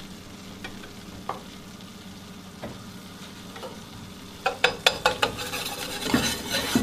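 A faint steady hiss. From about four and a half seconds in, a wire whisk clicks and scrapes against a stainless steel pan as a butter-and-flour roux is whisked, and the sizzling gets louder.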